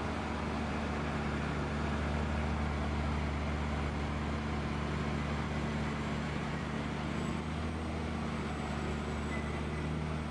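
Heavy-haul truck's diesel engine running steadily under load, a low even hum with a faint hiss over it, as it pulls a multi-axle heavy-load trailer slowly round a tight bend.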